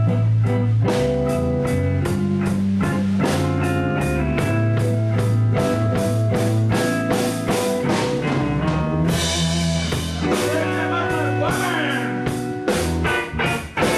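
Live band playing a blues: electric guitars over bass guitar and a drum kit keeping a steady beat.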